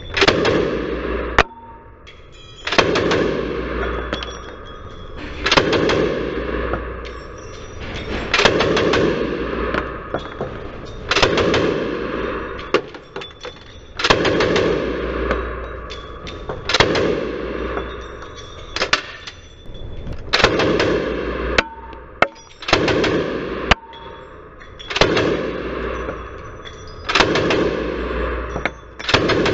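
Thompson submachine gun in .45 ACP fired in about a dozen short full-auto bursts, two to three seconds apart, each burst ringing on in the indoor range.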